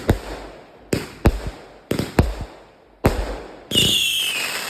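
Consumer firework cake (500-gram, 36-shot) firing: about six sharp bangs in quick succession, each trailing off. Then, near the end, a louder sustained hiss with a high whistle sliding slightly down in pitch.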